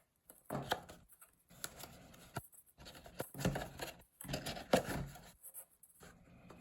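A toy kit's packaging being pulled open and handled: a run of irregular rustles, scrapes and sharp clicks.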